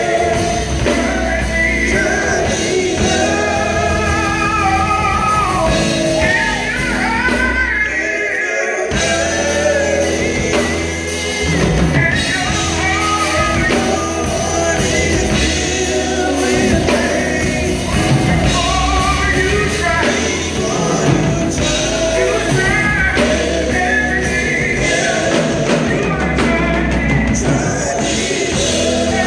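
Live gospel group: several singers on microphones over a band of drum kit, electric guitar and keyboard. The band briefly drops out about eight seconds in while the voices carry on.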